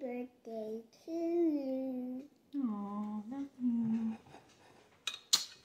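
A voice humming a few held notes that slide in pitch, with a sharp click about five seconds in.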